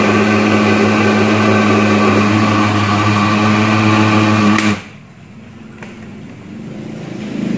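Countertop blender with a glass jar running steadily, blending a thick banana-mango smoothie, then switched off suddenly about four and a half seconds in.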